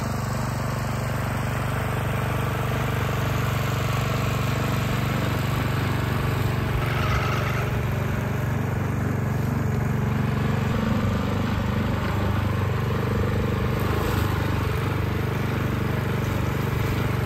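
Predator 212 single-cylinder four-stroke engine running steadily at low speed as it drives the wagon along.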